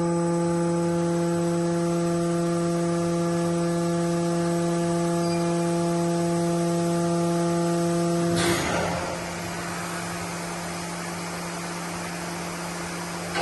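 Machinery of an automatic sheet loader for a laser cutter: a steady electric hum with many overtones, broken about two-thirds of the way in by a short burst of hissing air, after which a quieter hum continues.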